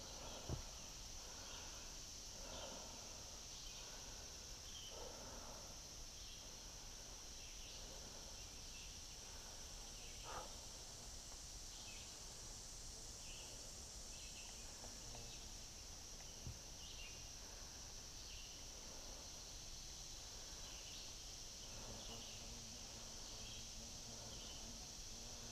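Summer woodland ambience: a steady high-pitched insect drone with short high chirps about once a second. There is faint rustling throughout, and two soft knocks, one about ten seconds in and one past sixteen seconds.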